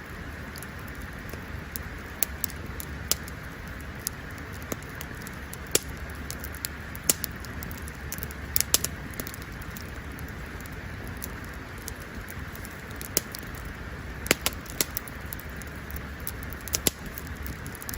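Wood campfire crackling, with sharp pops at irregular intervals over a steady low hiss.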